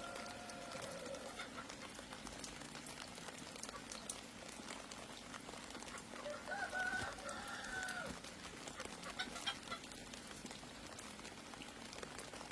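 Rooster crowing twice, once at the start and again about six seconds in, each crow held for a second or two, over a light patter of small ticks.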